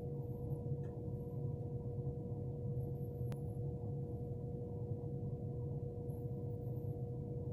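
A steady low hum with a constant mid-pitched tone running through it, and one faint sharp click a little past three seconds in.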